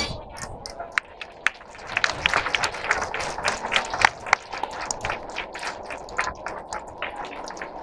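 Irregular sharp clicks, densest through the middle, over a steady background hiss.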